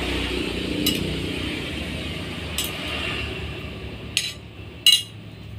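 Spoons clinking against plates as food is dished out: about four separate clinks, the loudest near the end.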